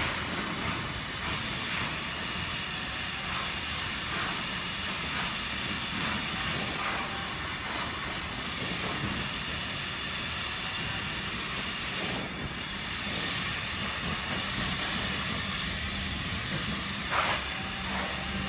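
Gas brazing torch flame hissing steadily while an air-conditioner copper branch pipe joint is brazed.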